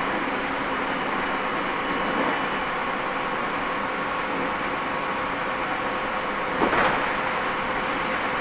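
Running sound inside a Tobu 30000 series electric train's motor car at steady speed: an even rumble of wheels on rail with a constant hum from the traction equipment. A brief sharp noise cuts through about six and a half seconds in.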